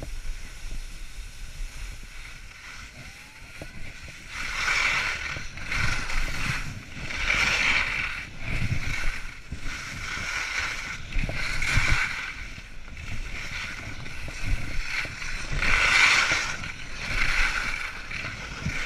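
Skis scraping and carving through snow in a run of turns: after a quieter first few seconds, a hiss of sliding snow swells and fades about every two seconds, one surge per turn.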